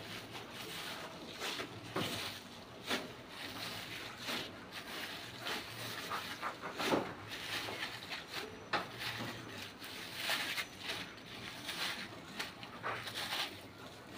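Broad green leaves washed by hand in a steel bowl of water: irregular splashes and wet rustling as the leaves are swished and lifted out, every half second or so.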